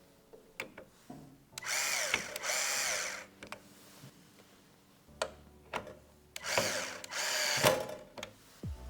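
Small electric screwdriver driving screws in short runs: two pairs of brief bursts of motor whine, each rising and falling, with light clicks of parts and screws being handled between them.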